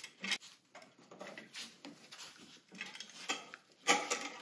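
Light metallic clicks and clinks of wall switches, wire and a screwdriver being handled at a metal electrical box by gloved hands, as wire hooks go onto switch terminal screws. The sharpest click comes near the end.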